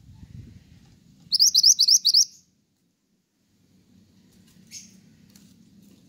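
Caged songbird giving a quick, loud run of about six sharp rising chirps lasting about a second, with one fainter note a few seconds later.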